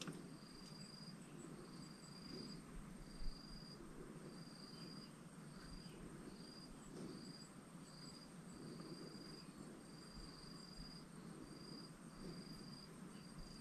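Faint insect chirping outdoors in a steady, even series of short high-pitched chirps, a little more than one a second, over a thin steady high whine. There is a single soft knock about three seconds in.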